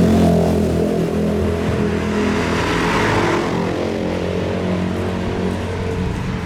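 A motor vehicle engine running steadily at low revs, with small shifts in pitch, easing off slightly toward the end.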